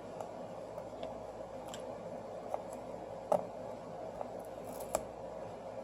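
Scattered small clicks and ticks of repair tools picking at a phone's shattered front glass, over a faint steady hum.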